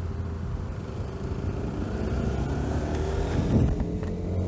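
Honda GTR150 motorcycle engine running under way, its pitch rising about halfway through as the bike accelerates.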